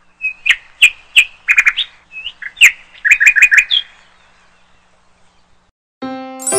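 A bird chirping: a string of short, sharp high chirps, some in quick runs of four or five, for about four seconds. About six seconds in, a piano-like keyboard jingle starts.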